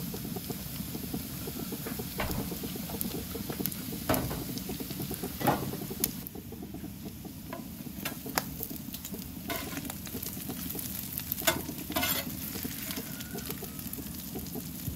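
Chopped smoked brisket sizzling on a hot flat-top griddle as its fat renders, a steady crackle. Steel spatulas scrape and tap against the griddle surface several times as the meat is tossed.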